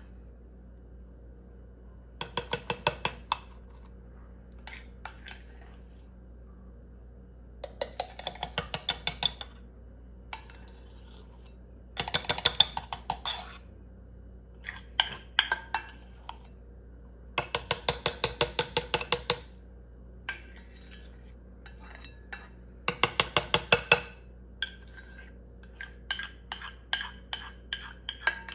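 Metal spoon clinking and scraping against a bowl while scooping thick whipped coffee, in several runs of rapid clicks a second or two long, with single taps between them.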